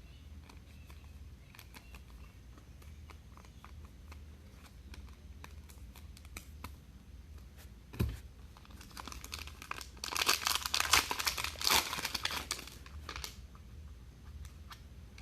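Plastic and foil wrapping crinkling and tearing as a pack of trading cards is opened, loudest for about three seconds starting some ten seconds in, with a knock about 8 s in and soft clicks of cards being handled.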